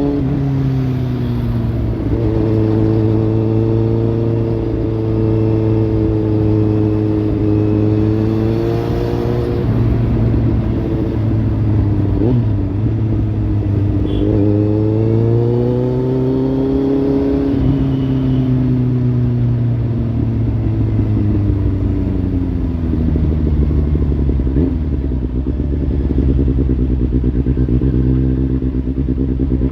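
Kawasaki Z800's inline-four engine running through a Lextek slip-on exhaust, its pitch holding steady for stretches, then rising and falling with the throttle several times, with a quick climb right at the end.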